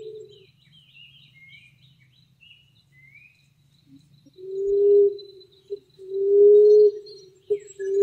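Emerald dove cooing: after a quiet spell, low steady coos begin about four seconds in, long coos alternating with short notes. Small birds chirp faintly in the first few seconds.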